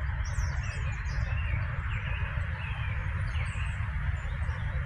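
Outdoor ambience: scattered faint bird chirps over a steady low rumble and an even hiss.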